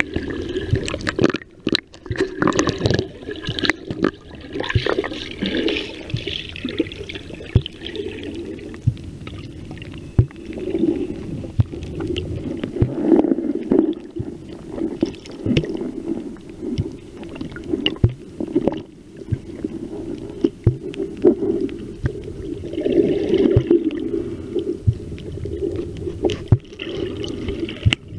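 Muffled sound of seawater picked up by a camera submerged underwater: a low, swelling wash with many irregular clicks and knocks.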